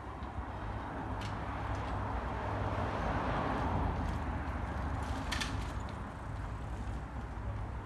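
A vehicle passing, its noise swelling to the loudest about three and a half seconds in and then fading, over a steady low rumble. A couple of sharp clicks come about five seconds in.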